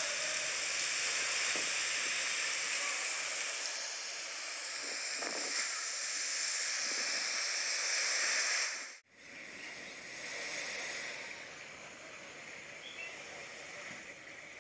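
Cyclone wind and rain, a dense steady hiss as the gale tears through trees. About nine seconds in it cuts off abruptly, and a quieter rush of wind and washing floodwater follows.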